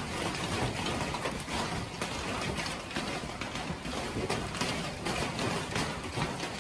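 Hail falling on pavement and parked cars: a dense, irregular patter of many small hits over a steady rushing noise.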